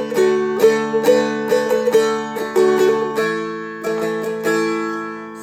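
Seagull Merlin M4, a four-string diatonic stick dulcimer, played with a flatpick: melody notes picked over open drone strings that ring steadily, the picking thinning after about three seconds into a few notes left ringing out.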